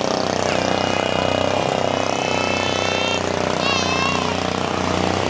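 Steady drone of racing outrigger boats' diesel engines, with crowd murmur. A high whistle-like tone is held for a few seconds, and a short warbling one follows about four seconds in.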